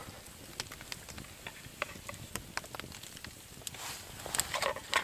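Campfire crackling: irregular sharp pops and snaps, with a denser burst of crackle and rustle about four seconds in.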